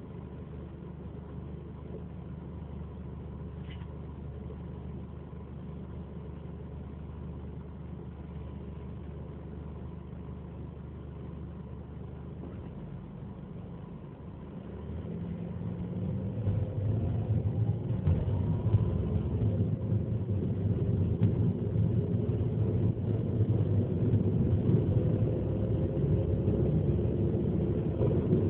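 Ford Focus engine and drivetrain running quietly and steadily, then, about halfway through, getting much louder as the car accelerates, with a rising whine. The owner is recording an abnormal noise on the shift from second to third gear.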